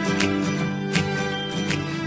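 Instrumental background music led by a plucked guitar.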